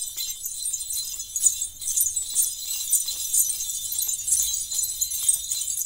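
Jingle bells shaken in a steady pulsing rhythm, about two shakes a second, with a faint low rumble underneath.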